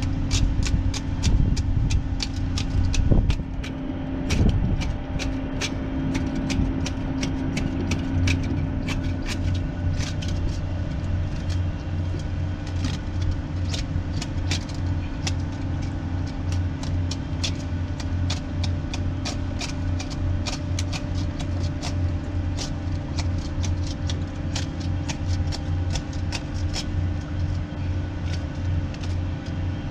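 Steady low drone of a running engine, with a quick, irregular ticking of sharp clicks over it for most of the time.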